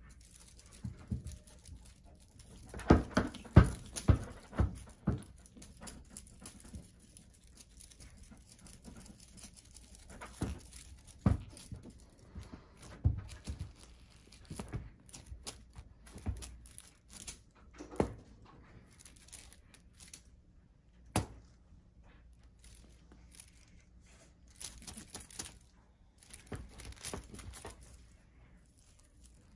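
Irregular rustling, scuffling and soft thumps of a kitten pouncing on, batting and biting a feather wand toy on a plush blanket. A cluster of sharp knocks comes about three to five seconds in, with single sharp knocks scattered later.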